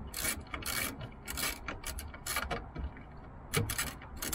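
Hand socket ratchet on an extension clicking in short, irregular runs as 10 mm bolts under a Jeep Wrangler JL are loosened.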